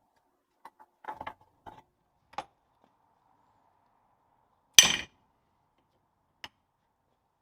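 Steel differential parts knocking and clinking on a workbench: a run of light metallic clicks and clinks, then one loud metallic knock with a short ring about five seconds in, and a faint click near the end.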